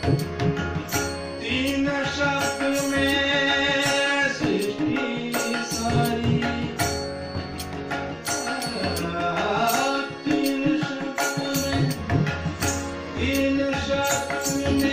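Shiva bhajan sung by a man, with a harmonium playing held chords under the voice and tabla drumming steady strokes.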